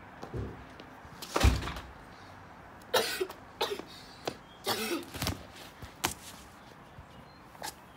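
A boy coughing and gasping in several harsh bursts, acting out a fit of breathlessness as an asthma patient, with a single loud thump about a second and a half in.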